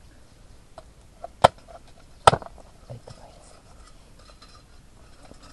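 Two sharp chops of a large knife through cooked chicken into a wooden chopping board, under a second apart, with a few lighter taps and handling sounds around them.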